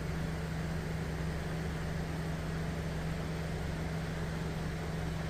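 Steady cabin noise inside a car waiting in traffic: an even low hum with a hiss over it.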